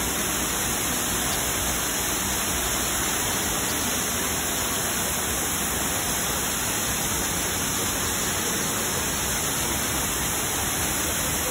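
Large waterfall pouring over rock into a pool: a steady rush of falling water.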